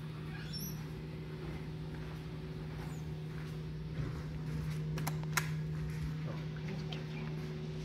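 Steady low hum of background equipment, with a few light sharp clicks in the middle, the loudest about five and a half seconds in.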